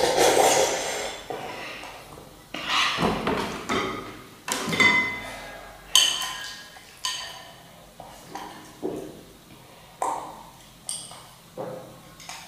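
Metal spoon clinking against ceramic noodle bowls: a series of sharp ringing knocks, about one a second, each dying away quickly.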